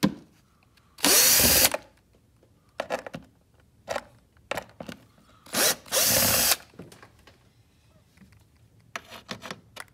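Power driver with a T20 Torx bit spinning out the screws on an air filter housing cover, in two short bursts: one about a second in and one about halfway. A few light clicks come between them as the bit is moved from screw to screw.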